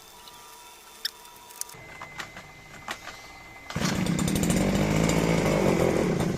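Small lawn mower engine starts running loudly about two-thirds of the way in and runs steadily for a couple of seconds before cutting off abruptly. A few faint clicks come before it.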